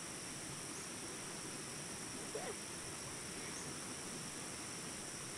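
Rainforest insects droning in a steady high-pitched chorus, with one faint short call about two and a half seconds in.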